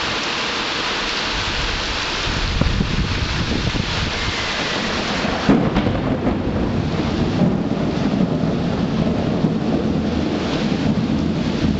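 Thunderstorm: heavy rain falling steadily while thunder rumbles. About halfway through a sudden loud thunderclap breaks in and rolls on as a long low rumble.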